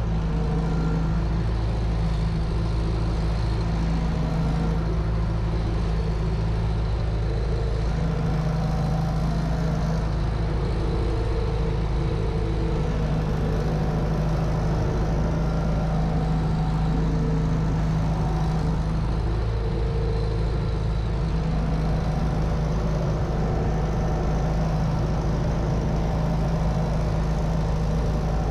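Universal U650 tractor's four-cylinder diesel engine running steadily under load while pulling a three-furrow plough, heard from inside the cab.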